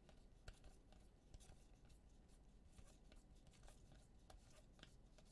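Near silence with faint, scattered soft clicks and rustles of trading cards being handled and flipped through.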